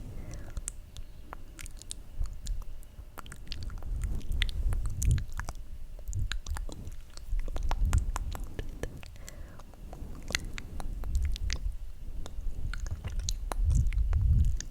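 Close-miked ASMR mouth sounds: a dense, irregular run of wet clicks and smacks from the lips and tongue, over low muffled rumbles that swell and fade several times.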